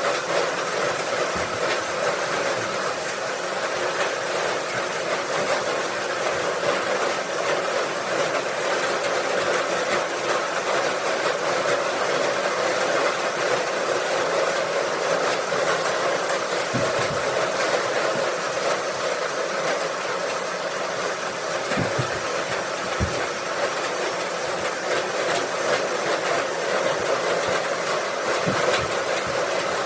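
Straw bale elevator running steadily, a continuous mechanical rattle, with a few dull thumps in the second half.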